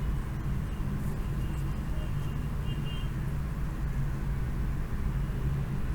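Steady low background rumble with no speech, with a few faint short high tones between about one and three seconds in.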